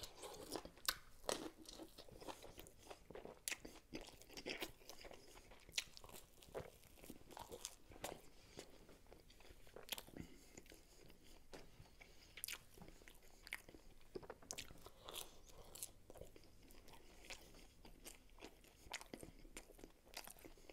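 Close-miked chewing of pizza: irregular small crisp crunches and mouth clicks, scattered all through.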